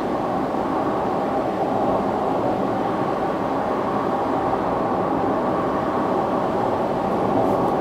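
Steady road and engine noise inside the cabin of a Nissan Dayz Highway Star kei car cruising at expressway speed: an even rumble of tyres and engine with no change in pitch.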